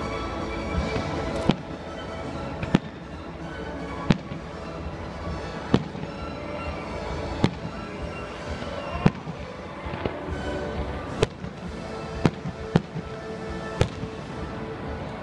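Aerial fireworks shells bursting, about ten sharp bangs irregularly spaced half a second to two seconds apart, with music playing steadily underneath.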